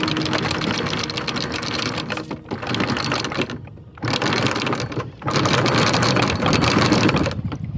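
Anchor windlass hauling in anchor chain, the chain clattering over the windlass as the anchor comes up out of the water. It runs in three stretches with short pauses between.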